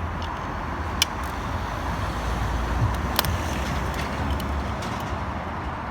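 Steady rumble of passing road traffic, with a few sharp clicks from metal parts being handled.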